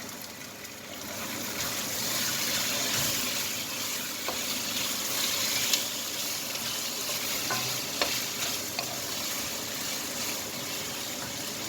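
Chicken pieces frying in hot oil with garlic and onion, a steady sizzle that grows louder about a second in, while being stirred with a few light knocks.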